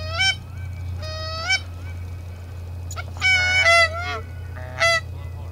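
Hunters blowing Canada goose calls: a series of short honks and clucks, each breaking upward in pitch, with a quick run of overlapping honks in the middle.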